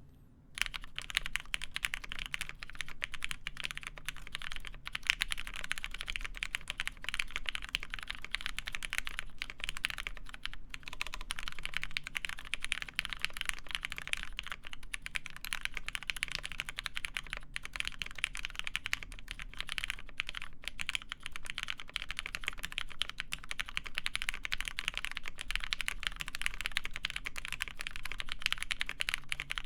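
Fast, continuous typing on a Matrix Lab 8XV2.2 mechanical keyboard with lubed Cherry MX Black linear switches on a full aluminum plate and GMK keycaps: a dense run of keystroke clacks starting about half a second in.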